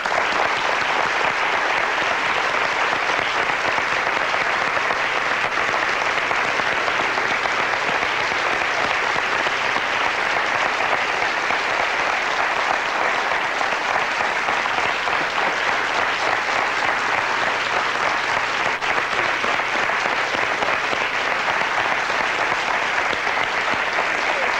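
Studio audience applauding steadily and at length: an entrance ovation for a talk-show guest.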